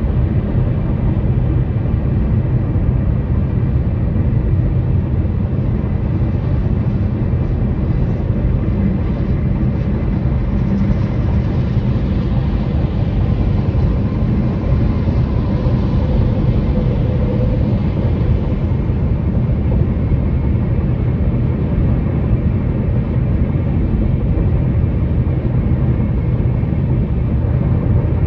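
Steady low tyre and road rumble of a car driving across a bridge deck, with a hiss that swells and fades about halfway through.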